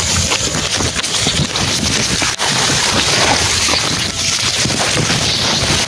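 A steady, dense rustle of cassava leaves brushing close against the microphone as someone pushes through the plants.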